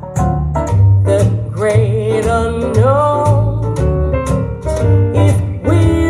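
A jazz song played back through hi-fi loudspeakers: a woman sings a wavering melody over a double bass line and sharp rhythmic strikes.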